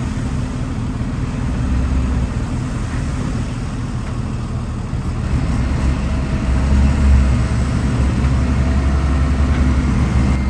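Heavy diesel engine of earthmoving equipment running steadily with a deep rumble, growing somewhat louder about six seconds in.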